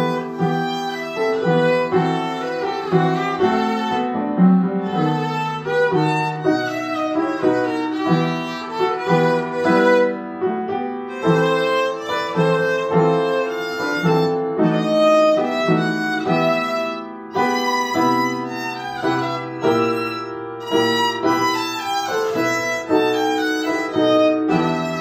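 Instrumental background music: a violin playing a melody over a lower accompaniment, with no singing.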